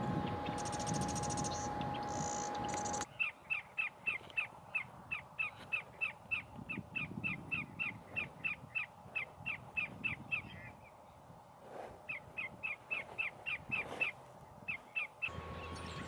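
Greater yellowlegs calling: a long, even run of short, sharp notes, about three to four a second, with a break of a second or so about two-thirds through. Before the calls, a steady hum carries a few brief high, buzzy trills.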